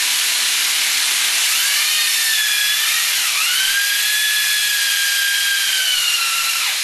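Homemade pulse motor and inverter rig running under heavy load: a steady loud hiss with a high electrical whine that rises, dips briefly, holds, then sags and drops away near the end. It is drawing too much current, enough to blow the oversized bulb and trip the breaker.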